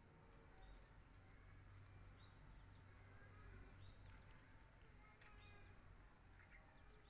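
Near silence: faint outdoor ambience with a low hum and a few faint, short high chirps.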